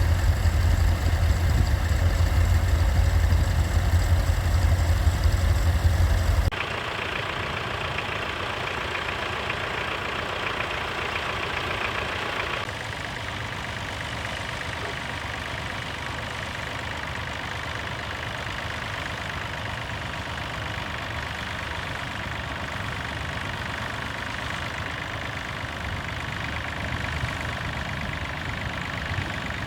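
Classic tractor engines running in three successive stretches. A loud, deep-toned engine plays for the first six seconds or so. It cuts suddenly to a quieter, higher-toned engine, which changes again about thirteen seconds in to a steady engine sound.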